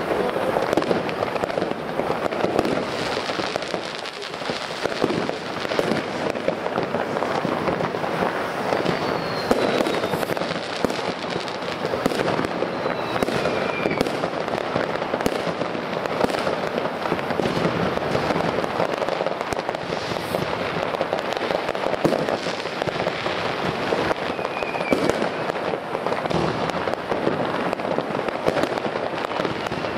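Fireworks going off continuously: a dense, steady crackling and popping, with a few short falling whistles scattered through.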